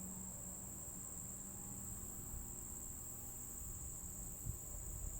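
Crickets trilling in one steady, unbroken high-pitched drone, with a faint low hum that fades out about two seconds in.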